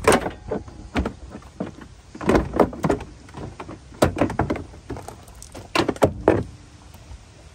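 Plastic inner fender liner of a 2018 Ram 2500 being pulled and flexed out of the front wheel well by hand, giving a string of irregular knocks and crackles.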